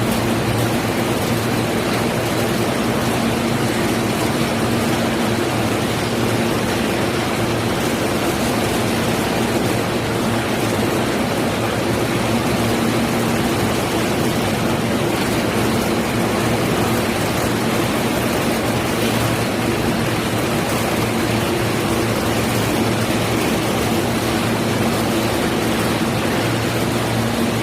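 Tangerine sorting and grading machinery running: a steady mechanical drone with a constant low hum under a wide rushing noise.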